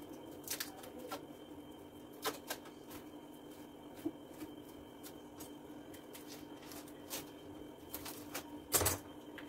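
Large kitchen knife cutting up a watermelon, with scattered crisp cuts and taps of the blade through the rind and a louder knock near the end, over a steady low hum.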